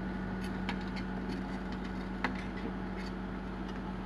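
Komatsu hydraulic excavator's diesel engine running steadily as the machine crawls off a truck bed on its steel tracks, with a few sharp metallic knocks, the loudest about two seconds in.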